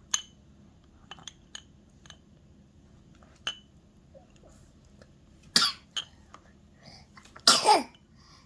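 An 11-month-old baby sneezing twice, about five and a half seconds in and again near the end. The second sneeze is the louder, with a falling voiced tail. The uploader puts the frequent sneezing down to the spring season. A few light clinks of feeding utensils come before.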